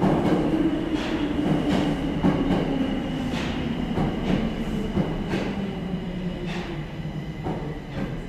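Subway train pulling into a station and slowing: its motor whine falls slowly in pitch over a run of irregular wheel clacks on the rail joints, growing quieter toward the end.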